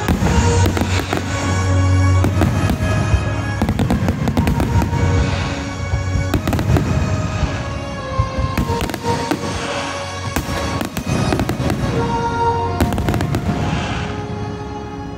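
Aerial firework shells bursting and crackling one after another, over loud music playing.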